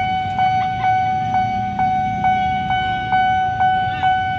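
Railway level-crossing warning bell ringing, a steady ringing tone struck again about twice a second. It is the signal that the crossing is closing for an approaching train. Street traffic rumbles underneath.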